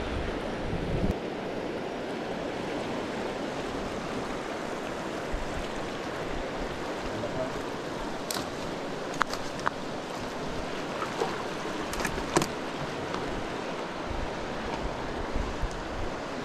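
Steady rush of river water churning and flowing below a concrete weir, with a few light clicks scattered through.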